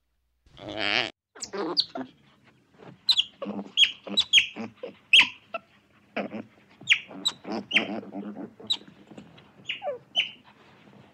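Animal calls: one longer call about half a second in, then a string of short, high chirps, each dropping in pitch, coming irregularly in quick succession.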